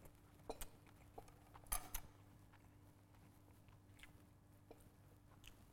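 Quiet chewing of a mouthful of braised pork belly and rice, with a few short, sharp clicks in the first two seconds over a faint steady low hum.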